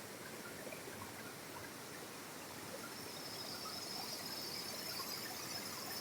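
Steady rush of water from a waterfall, a fairly quiet even hiss. About halfway through a high, steady whine joins it.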